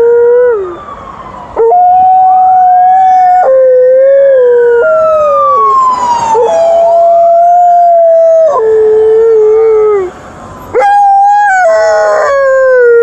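An ambulance's two-tone siren switches between a low and a high note every one to two seconds, dropping out briefly twice. Over it, an Alaskan Malamute howls along in long howls that slide down in pitch.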